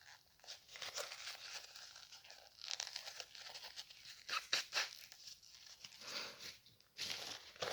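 Paper tissue rustling and crinkling in short, irregular spurts, as it is handled between sneezes and nose-blowing.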